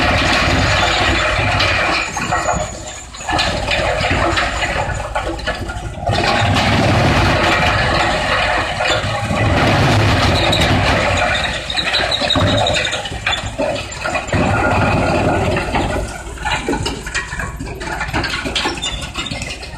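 Industrial wood crusher running and crushing wood: a loud, steady grinding noise that eases off briefly several times, near three, six and twelve seconds in and again toward the end.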